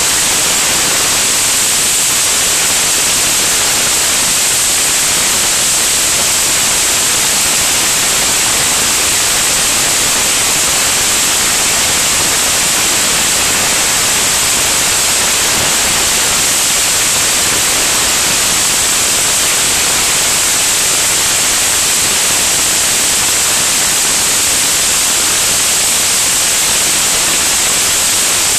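Steady, loud rushing hiss of airflow over a camera mounted under an aircraft wing in flight: wind noise on the microphone, even and unbroken, with no engine tone heard through it.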